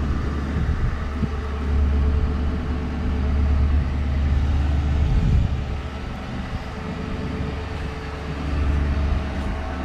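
Ford Crown Victoria Police Interceptor's 4.6-litre V8 idling steadily, with wind rumbling on the microphone in gusts that swell and fade.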